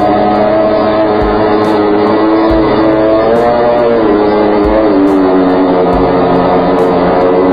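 Background music: a melody stepping between notes over a steady beat.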